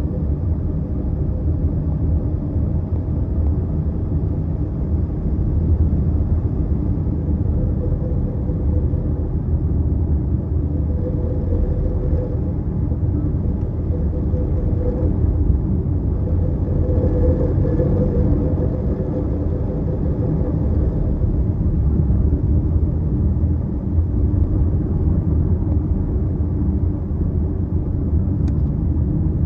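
Land Rover Discovery Sport being driven, a steady road and engine rumble in which the owner hears a rattling noise.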